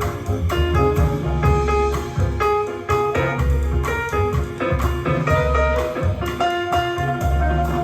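Band music playing back from a cassette recorded on an Akai GX-9 cassette deck, with held melody notes over a steady, heavy bass beat.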